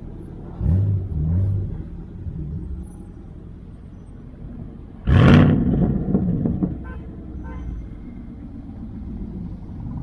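Chevrolet Camaro engine rumbling as the car pulls away, with a couple of quick revs about a second in. About five seconds in comes a sudden, louder burst of throttle, the loudest moment, before the engine settles back to a low, steady rumble.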